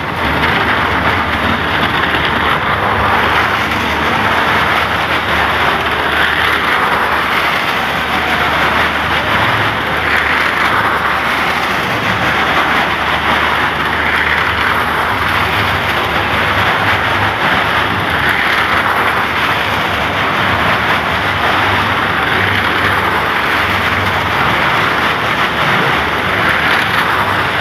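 Cars driving round and round the vertical wooden wall of a well-of-death drum: a loud, steady mix of engine and tyre noise that swells slightly every few seconds as they circle.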